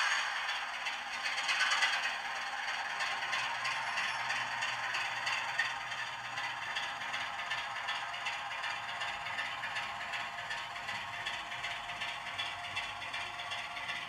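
Model railway diesel locomotive running slowly along the track, its wheels and motor making a steady rattling, scraping clatter that is louder in the first couple of seconds.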